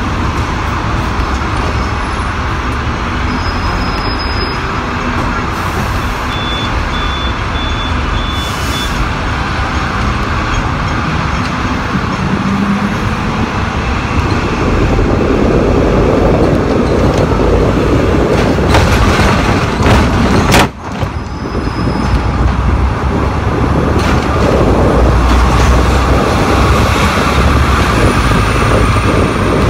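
Hong Kong double-deck electric tram running along its street track: a steady rumble and rattle of wheels on rail and motor, growing louder about halfway through. A short run of five high beeps sounds about a quarter of the way in.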